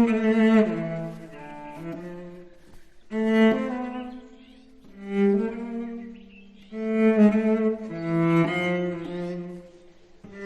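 Background score: a slow bowed-string melody, held notes stepping in pitch, in short phrases that swell and fade.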